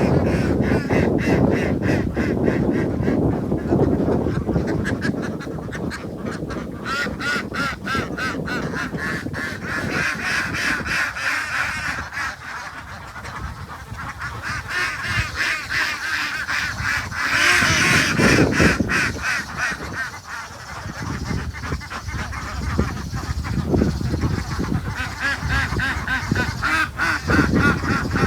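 Waterfowl quacking and honking, call after call without a break, loudest about eighteen seconds in and again near the end.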